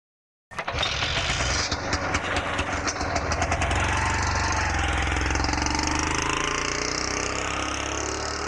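Auto rickshaw engine running with a rapid clatter that sets in abruptly about half a second in, then evens out into a steady low-pitched hum.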